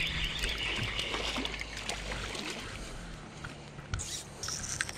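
Spinning reel being cranked as a small bass is reeled in, then the fish splashing at the water's surface about four seconds in.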